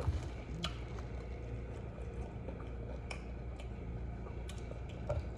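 Quiet wet squishing and a few faint clicks of saucy seafood-boil food being handled and eaten, over a steady low hum.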